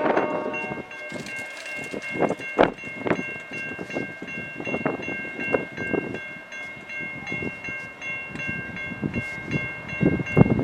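Railway warning bell ringing steadily in even repeated strokes while a slow-moving train rolls by, its wheels thudding irregularly over the rails. A train horn blast cuts off right at the start.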